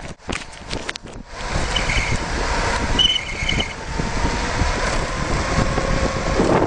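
Wind rushing over the microphone of a rider coasting fast downhill on a small bike, with rattles and knocks from the bike in the first second. Two short high squeals sound about two and three seconds in.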